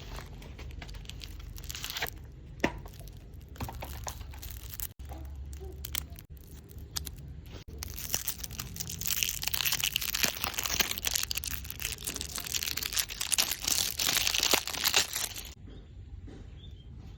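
Packaging being torn open and crumpled: irregular rustling, crinkling and tearing with scattered sharp crackles, heaviest from about eight seconds in until shortly before the end.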